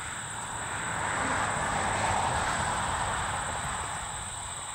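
A road vehicle passing by, its tyre and engine noise swelling to a peak about two seconds in and then fading away.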